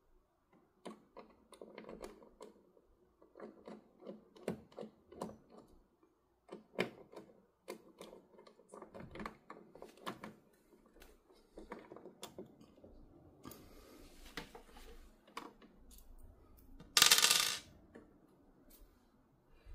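T9 Torx screwdriver clicking and tapping against screws and hard plastic while undoing the inner brew nozzle of a Philips coffee machine, a run of irregular small clicks. Near the end a louder, noisy rasp lasts about half a second as the plastic nozzle assembly is worked loose.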